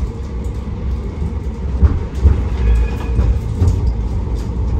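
A tram running on its rails, heard from inside the passenger cabin: a steady low rumble of wheels on track with irregular low thumps. A faint high squeal comes in about two and a half seconds in and lasts under a second.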